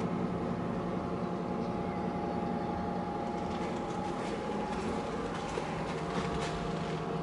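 A steady machine hum holding a low and a mid-pitched tone, with a few faint clicks in the middle seconds.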